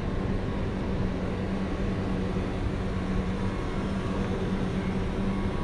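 Busy city street ambience with a steady low mechanical hum running under the general traffic noise.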